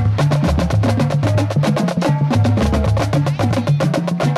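Marching drum line playing a fast cadence: dense rapid snare and tenor strokes over tuned bass drums that step between several pitches.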